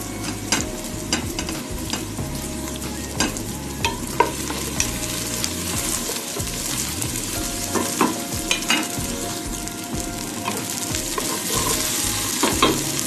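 Sliced onion, garlic and ginger sizzling in hot oil in a cooking pot as they are stirred, with a steady frying hiss. A stirring utensil knocks against the pot now and then, giving sharp clicks.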